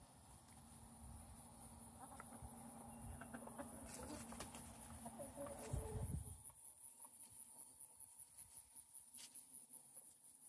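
Faint yard sound of foraging chickens, with a few soft clucks about halfway through, over a steady high-pitched insect drone and a low hum that stops about six seconds in.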